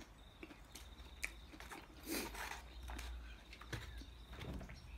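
Quiet eating sounds: chewing, and a metal fork and knife clicking and scraping through food in a foam takeaway container. A faint, steady high-pitched trill runs behind it.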